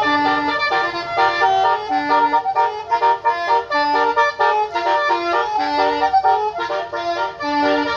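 Multi-trumpet 'telolet basuri' bus air horn playing a tune, a run of held notes and chords with a lower note returning about every two seconds.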